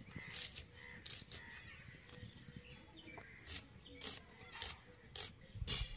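An onion being sliced against the curved blade of a boti: short, crisp cuts at uneven intervals, coming more often in the second half.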